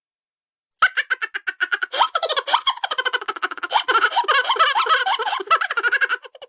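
Cartoon sound effect of high-pitched, sped-up giggling from many voices at once, like a crowd of munchkins. It starts suddenly about a second in as fast, stuttering bursts of laughter and stops abruptly at the end.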